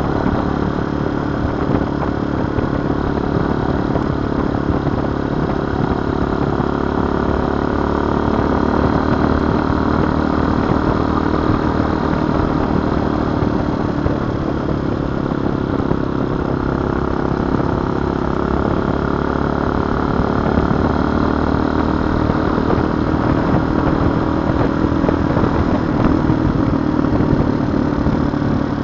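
TaoTao TBR7 dirt bike's single-cylinder four-stroke engine running steadily on the move, its pitch easing and rising a little with the throttle, under a constant rush of wind noise.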